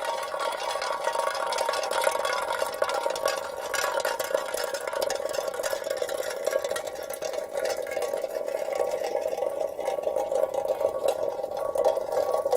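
Metal soda can rolling on asphalt: a continuous scraping, tinny rattle with a steady ringing note from the can body and dense small clicks from the grit of the road surface.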